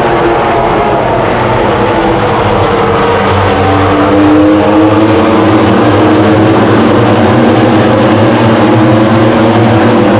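MotoGP race motorcycles running at racing speed, several engines at once. The pitch and loudness rise about four seconds in as the bikes accelerate past.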